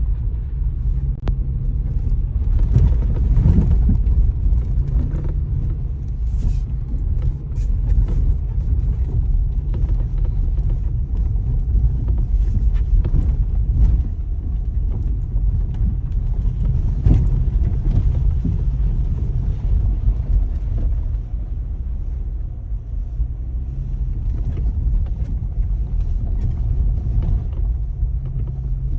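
Wind buffeting the microphone outdoors: a steady low rumble, with a few faint clicks scattered through it.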